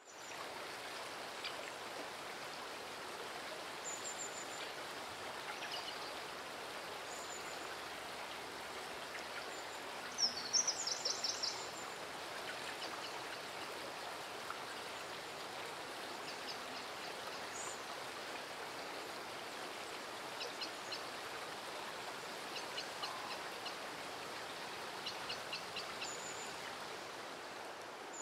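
Outdoor nature ambience: a steady rush of running water with small birds chirping throughout, a quick burst of loud chirps about ten seconds in, and short repeated call series near the end.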